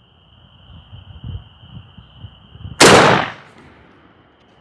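A single shotgun blast about three seconds in, very loud, with a short ringing tail, fired from a Hatsan Bulltac semi-automatic 12-gauge bullpup shotgun. Faint handling knocks come before it.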